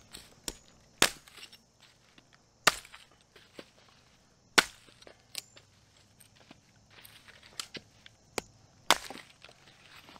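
Hatchet chopping branches into firewood on the ground: sharp, irregularly spaced strikes, four of them loud cracks, with lighter taps between.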